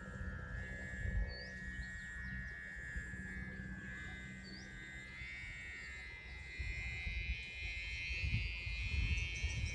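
The bow hummer (aek) of a Thai Chula kite droning in the wind: a steady high-pitched tone that steps up in pitch about halfway through. Gusty wind rumble on the microphone grows louder near the end, and two short bird chirps are heard.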